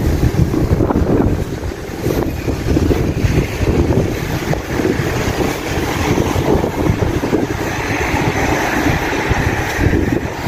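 Wind buffeting the phone's microphone in a loud, uneven rumble, with street traffic noise behind it.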